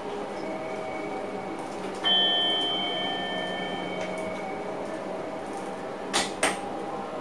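Driver's cab of an NS Sprinter Lighttrain (SLT) electric train running, with a steady electric hum. About two seconds in, a bell-like ding rings out and fades over about two seconds. Near the end come two sharp clicks in quick succession.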